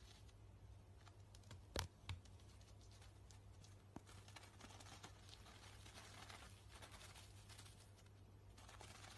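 Faint rustling and crinkling of toilet paper as a chipmunk pulls at it and stuffs it into its cheeks, with two sharp clicks close together about two seconds in.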